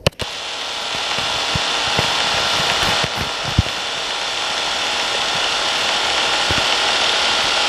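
Steady static hiss, strongest in the upper range, with a few faint low clicks scattered through it and a sharp click right at the start.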